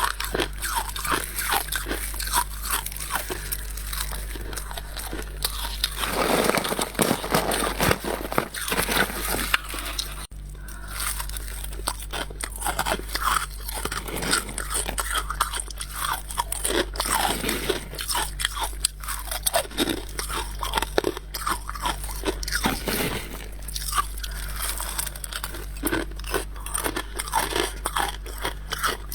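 Close-up crunching of freezer frost being bitten and chewed, a dense run of irregular crunches with a short pause just after a third of the way in. A steady low hum runs underneath.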